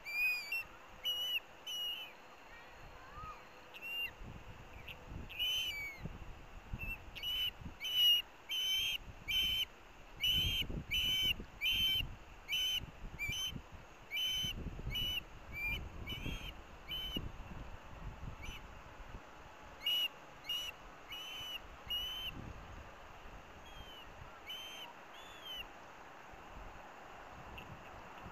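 Ospreys at the nest calling: a series of short, high-pitched chirping whistles, sparse at first, then coming quickly at about two a second for ten seconds or so, then thinning out near the end.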